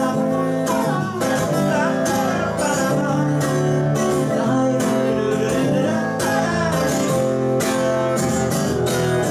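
Acoustic guitar strumming steadily through an instrumental break in a song, with a second guitar played flat on the lap adding gliding lead notes.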